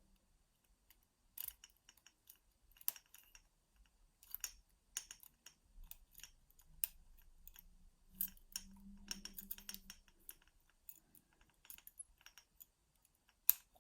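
Faint, irregular small metallic clicks and taps of lever-lock picking tools working the levers inside a 6-lever padlock.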